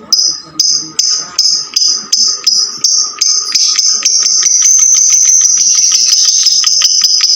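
Lovebird giving its ngekek song: shrill, high notes, at first separate at about two or three a second, then about three seconds in running together into one long, unbroken rapid chatter.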